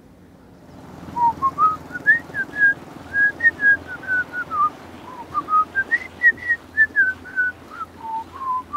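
A person whistling a tune: a string of short, clear notes that rise and fall, starting about a second in.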